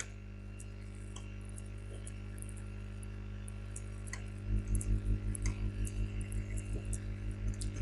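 Steady electrical hum made up of a stack of steady tones, with faint scattered clicks from the mouse used to wire the circuit in the simulator. About halfway through, a low pulsing at roughly five beats a second joins in.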